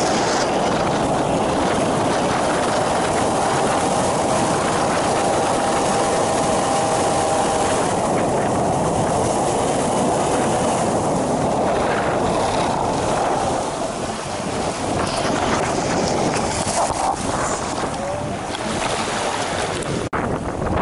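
Engine and propeller of an ultralight flying boat running at speed as the inflatable hull skims across the water, under heavy wind buffeting the microphone and water rushing past the hull. The sound briefly cuts out near the end.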